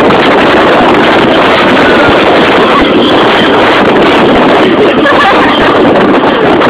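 Loud, steady wind buffeting the microphone on a tower swing ride circling high in the air.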